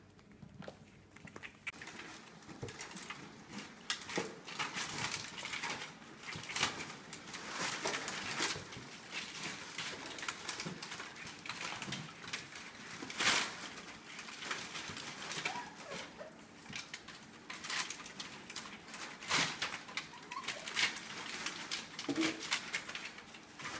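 Four-week-old puppies scrabbling and playing among plastic wrap, cardboard and toys: irregular rustling, crinkling and tapping, with a few louder crackles.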